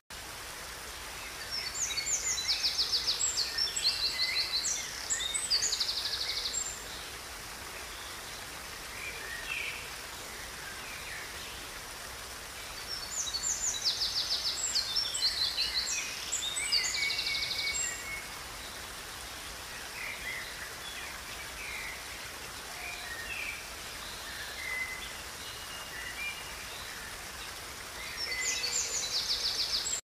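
Water splashing steadily over a small rocky cascade in a stream. A songbird sings three long, high phrases of rapid trills over it: one near the start, one about halfway through and one near the end. The song phrases are the loudest sound.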